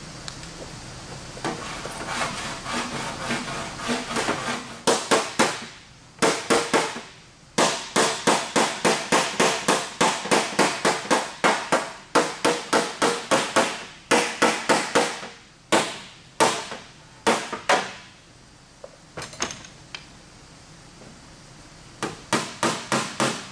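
Hand tools working a dented aluminium fender panel: a file rasping over the metal and a small body hammer tapping low spots up, in quick runs of sharp strokes about three a second with short pauses between runs.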